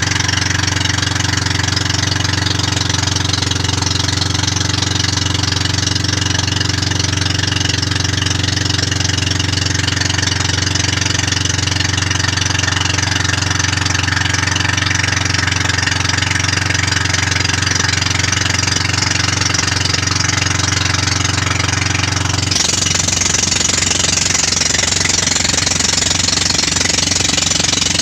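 Motorized outrigger boat's engine running steadily under way. Near the end the sound changes abruptly: the low engine hum thins out and a brighter hiss comes up.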